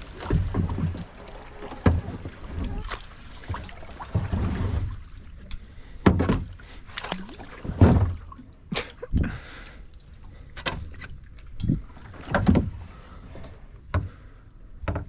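Kayak being paddled: the paddle dips into the water and knocks against the hull in an irregular run of thuds and splashes, roughly one a second.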